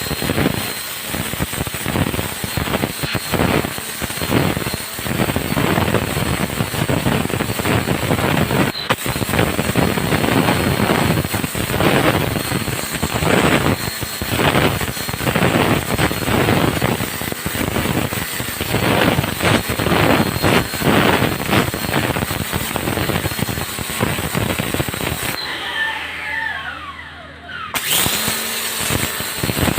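Predator 1,500-watt electric pressure washer running, its high-pressure jet hissing and spattering against a surface in constantly shifting surges. Near the end it briefly cuts out with a falling whine as the trigger is let go, then starts up again.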